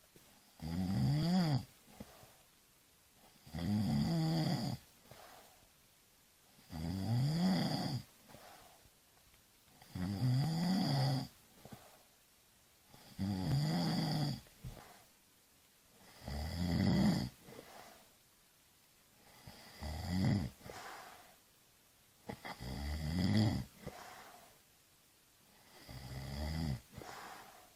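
A sleeper snoring in an even rhythm: nine loud snores about three seconds apart, each lasting about a second and a half, with a rasping pitch that rises and falls, then a much quieter breath before the next.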